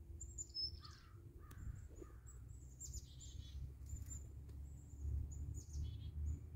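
Birds calling: a scatter of short, high chirps repeated throughout, with a few lower calls in between, over a steady low rumble on the microphone.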